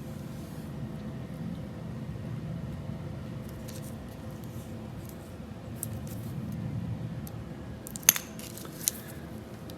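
Light clicks and clinks of a 1974 Ford F250 wiring harness being handled, its metal terminals and connectors knocking together, with a sharper click about eight seconds in and another just under a second later, over a steady low hum.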